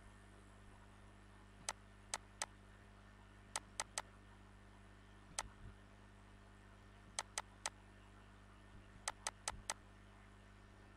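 Computer mouse clicking, about fourteen sharp clicks, mostly in quick runs of two to four, over a steady low electrical hum.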